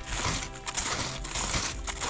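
Background music over the steady crunch of snowshoe footsteps in snow, a crunch every few tenths of a second.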